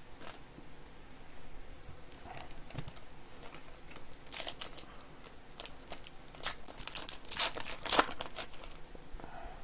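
Foil trading-card pack torn open and its wrapper crinkled in the hands: several short bursts of tearing and crackling, the loudest a couple of seconds before the end.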